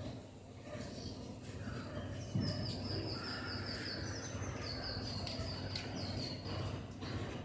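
A bird calling in two quick runs of short, high, evenly repeated chirps, over a steady low background rumble. A soft low thump comes just before the first run.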